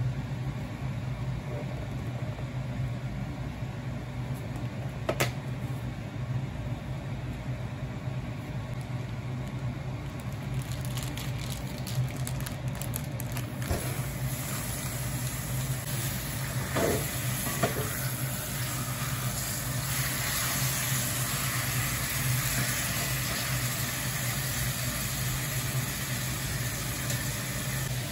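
Frozen marinated kalbi beef sizzling as it goes into a hot pot on a gas stove, over a steady low hum. The sizzling grows about halfway through, with a few light knocks of meat and utensils.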